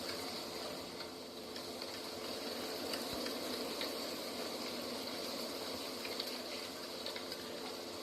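Steady rushing outdoor ambience with faint scattered ticks.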